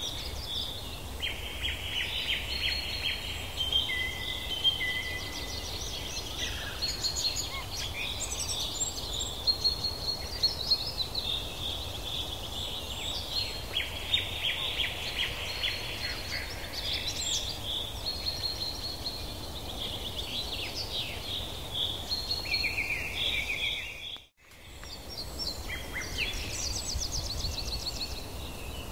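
Forest ambience: many birds chirping and trilling at once, over a steady low rumble. The sound drops out for a moment near the end, then the chorus resumes.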